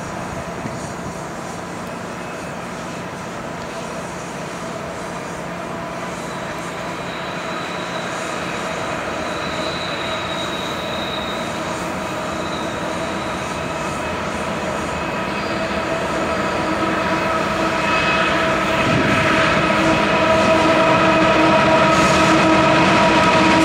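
Union Pacific diesel freight locomotives approaching, their engines growing steadily louder with a steady droning hum. A thin, high wheel squeal comes and goes about halfway through.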